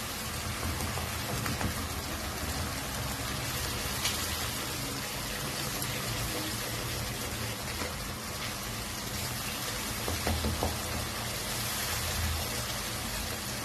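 Onion and spice masala frying in a pan, a steady sizzle with a few light clicks of a spoon against the pan.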